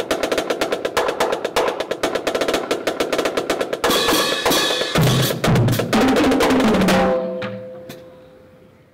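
Marching band drumline of snare drums, tenor drums, bass drums and cymbals playing a fast cadence of rapid strokes and rolls. It stops about seven seconds in, and the last stroke rings and fades away.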